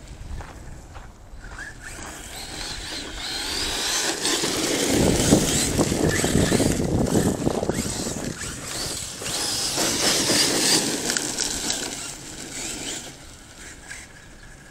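Arrma Kraton 6S RC monster truck driving close by: its brushless electric motor whines high, rising and falling with the throttle, over tyre noise on dirt. It is loudest twice, in the middle and again a little later, then fades.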